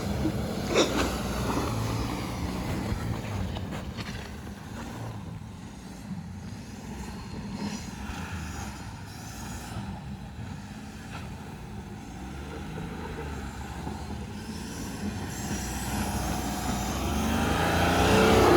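BMW F10 530d's stock 3.0-litre straight-six turbodiesel under throttle as the car spins donuts on snow. The engine grows fainter in the middle, then louder again near the end with a sweeping rise and fall in pitch as the car comes close. A brief sharp click about a second in.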